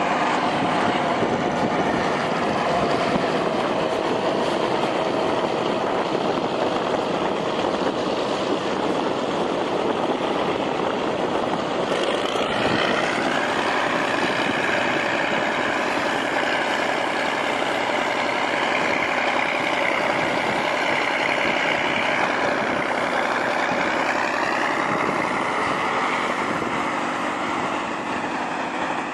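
Heavy vehicle engine running steadily, its pitch rising about twelve seconds in and shifting again near the end as it changes speed.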